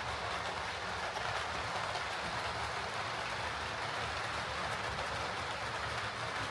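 OO gauge Heljan Class 58 model diesel locomotive running steadily along the track, its motor and gear train giving a low, even hum over the rolling of its wheels. It runs on its refitted drive cup, with the gear noise sorted out.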